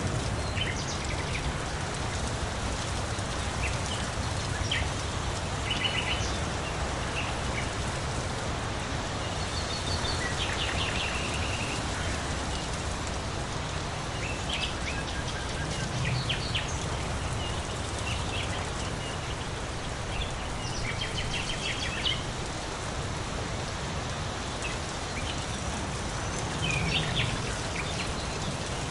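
Steady rain falling, with short clusters of bird chirps breaking through every few seconds.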